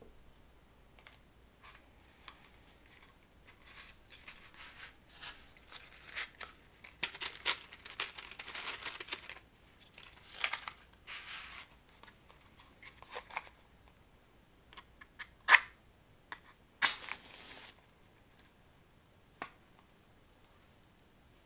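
A box of matches handled and slid open with small rustles and clicks, then a wooden match struck sharply against the box's striker and flaring with a short hiss.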